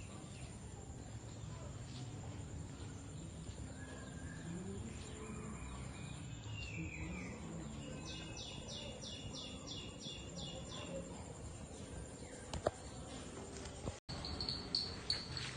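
Rural outdoor ambience with a bird calling: a few short gliding notes, then a quick run of about eight evenly spaced falling notes near the middle, about three a second.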